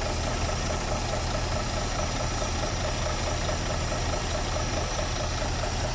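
Semi-truck tractor's diesel engine idling steadily.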